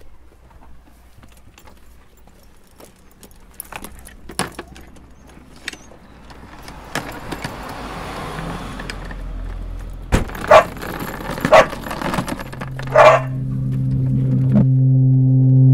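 Bags and a suitcase being handled at an open car boot: scattered clicks, rustling and a jangle, with a heavy thud about ten seconds in. Three loud, short, sharp sounds follow, and near the end a low droning tone with overtones swells in and grows louder.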